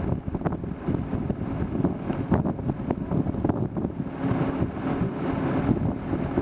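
Wind buffeting the camera microphone: an uneven low rumble that rises and falls in gusts.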